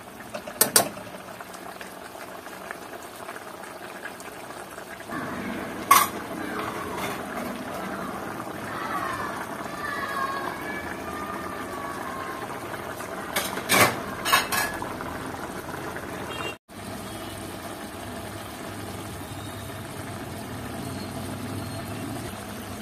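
Chicken stew in tomato sauce simmering and bubbling in an uncovered wok, left open so the sauce reduces and thickens. A metal ladle clinks against the wok a few times, about a second in, around six seconds in and twice near the middle.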